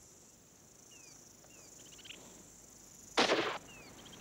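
A single shot from a scoped bolt-action hunting rifle about three seconds in, one loud blast against a quiet background.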